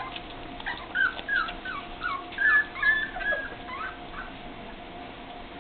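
Four-week-old Springer Spaniel puppies whimpering: a quick run of short, high squeals that mostly fall in pitch, thinning out after about three and a half seconds.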